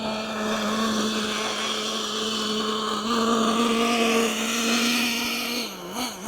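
Traxxas T-Maxx nitro monster truck's 3.3 glow engine running at a steady high pitch, rising a little about three seconds in. Near the end the revs dip and pick up again twice in quick throttle blips.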